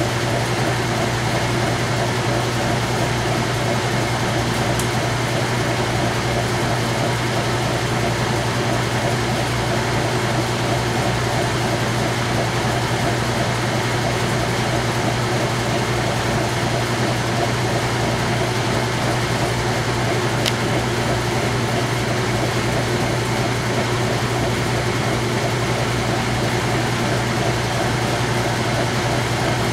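Whirlpool-built direct drive top-load washer in its rinse spin, the basket spinning at full speed with a steady motor hum and the whoosh of the turning tub.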